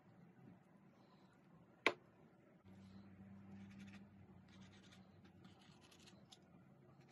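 Faint food-handling sounds: a single sharp click about two seconds in, then light scratchy rustling over a low steady hum, as gloved hands lay tomato slices on a flour tortilla and work tongs in a glass pickle jar.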